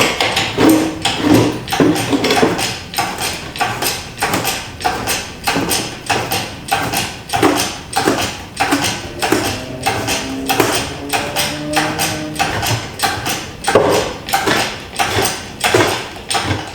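Steel chains clanking and rattling in a steady rhythm, about two to three clanks a second, as a motorcycle engine is hoisted out of its frame on four chains, with a few squeaky tones near the middle.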